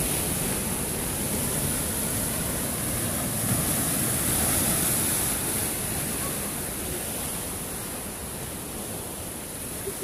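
Sea surf breaking against rocks: a steady rush of white water that swells about four seconds in and eases slightly toward the end.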